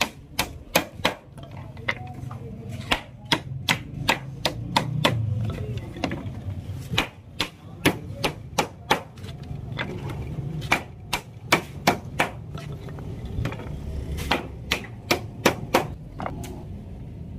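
Hammer blows driving nails through bamboo ladder rails into wooden rungs. The sharp strikes come in quick runs of three to five, about three a second, with short pauses between runs.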